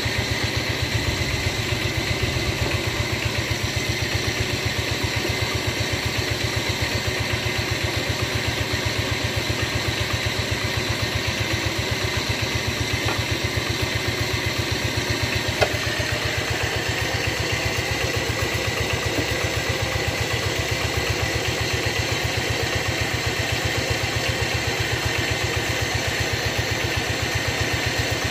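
A small engine running steadily with a fast, even beat, with a single knock about halfway through.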